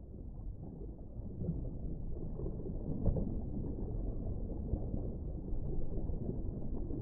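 Muffled underwater ambience: a low rumbling wash of water that swells over the first couple of seconds.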